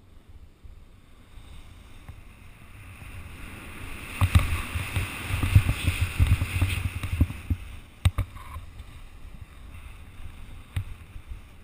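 Skis running through snow with wind buffeting the microphone as the skier gathers speed downhill: it builds up about three seconds in, is loudest for the next few seconds with low rumbling gusts and a hiss of snow, and eases off after a couple of sharp knocks about eight seconds in.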